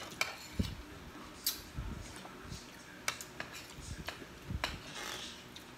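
Eating sounds at a dinner table: scattered small clicks and taps of spoons on plates, with soft chewing and mouth sounds.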